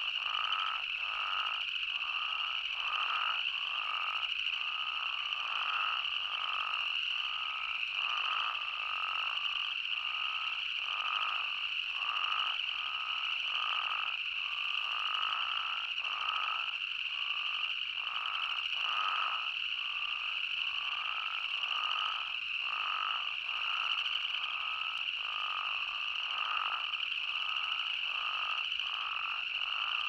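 A chorus of spadefoot toads calling: many short, overlapping calls, more than one a second, over a steady high-pitched drone.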